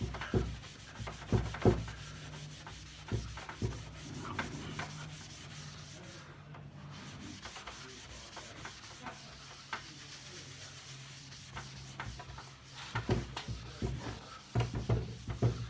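A hand-held buffing pad rubbed back and forth over a pine tabletop, buffing the finish: irregular scuffing strokes, sparse in the middle, then quicker and louder over the last few seconds.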